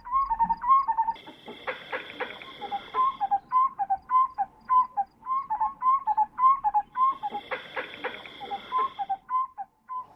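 Bushveld wildlife calls: a short note repeated about twice a second, each dipping in pitch, over a steady high buzz that comes and goes in two stretches.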